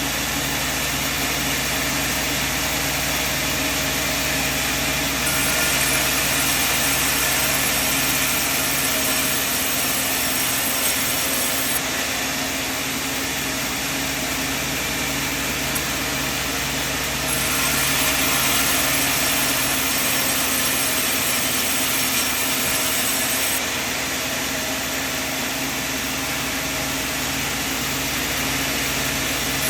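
Sawmill machine running with a steady hum. Twice, about five and about seventeen seconds in, a louder, hissier sound comes in for about six seconds.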